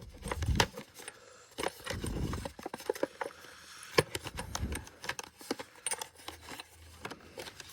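Hands handling the bulb's packaging to take out a small LED bulb: irregular clicks, taps and short rustles, with a few dull knocks.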